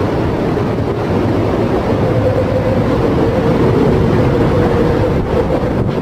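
Steady wind and heavy-sea noise of a storm at sea, with a constant mid-pitched drone under it.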